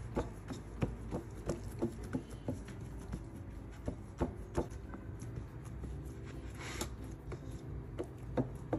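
Hands pressing and spreading bread dough out on a floured metal baking pan, with irregular light taps about one or two a second as the fingers push down, over a low steady hum.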